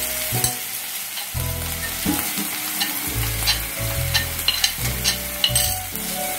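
Onion-and-spice masala sizzling in hot oil in a pan while it is stirred, with many sharp scraping clicks of the spatula against the pan.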